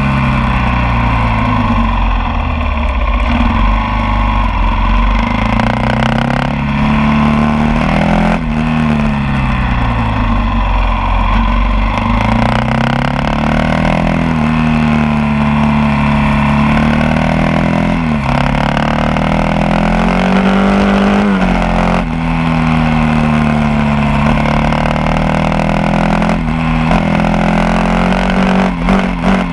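Kawasaki KLR 650 C's single-cylinder four-stroke engine, breathing through a GPR aftermarket exhaust with a short dB killer, pulling on the move. The engine note climbs under throttle, drops off sharply at each shift or roll-off, and climbs again, several times over.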